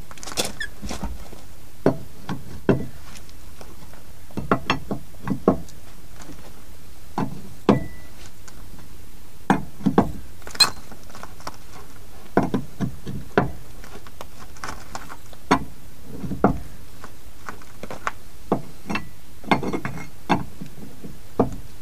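Irregular metallic clicks and knocks of a wheel brace on a boat trailer's wheel nuts as they are tightened down with the wheel on the ground.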